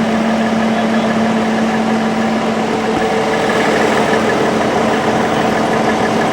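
Vehicle engine idling close by: a steady hum with a constant low tone.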